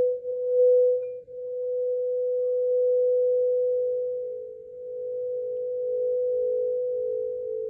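Quartz crystal singing bowl sustaining one pure tone around 528 Hz, wavering gently in loudness and dipping briefly about four and a half seconds in. Near the end a second, slightly lower tone comes in beside it, making the sound pulse.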